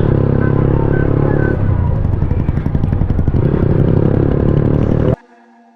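Yamaha R15M's 155 cc single-cylinder engine running through an aftermarket Akrapovic exhaust while riding, a loud steady exhaust note that wavers in the middle. About five seconds in it cuts off suddenly, leaving faint sustained music tones.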